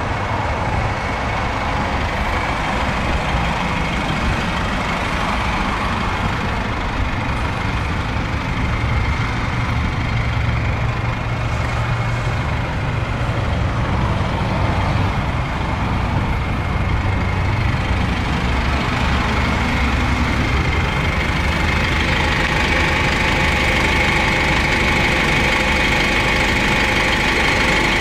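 GAZelle Next bus engine idling steadily, with a higher whine that grows louder over the last several seconds.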